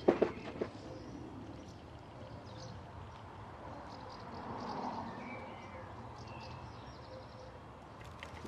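A few sharp metallic clicks in the first second, then steady outdoor ambience with birds chirping now and then.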